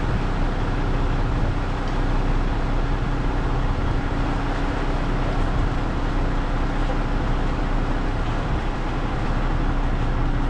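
Concrete mixer truck running steadily while it discharges concrete through its chute: a constant diesel engine rumble with a steady hum over it.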